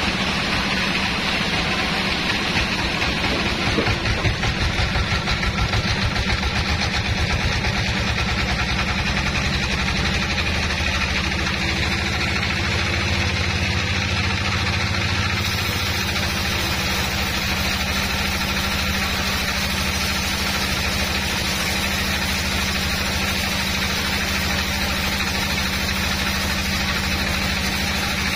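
Band sawmill's drive running steadily at constant speed, an even mechanical hum with no cut being made.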